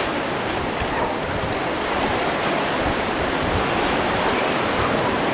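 Small sea waves washing and lapping in shallow water at the shoreline, a steady wash of surf.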